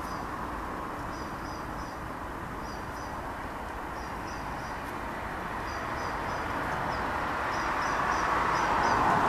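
Boeing 737-800 airliner's CFM56 turbofan engines heard from the ground as a steady jet rumble, growing louder over the last few seconds. A small bird chirps high above it in short runs of two to four notes, about once a second.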